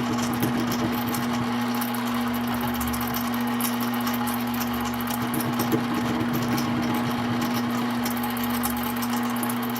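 Mini lathe running at a steady speed with a constant motor hum, its cutting tool trimming a 1/2 inch round-stock handle down to length with an irregular scratchy noise.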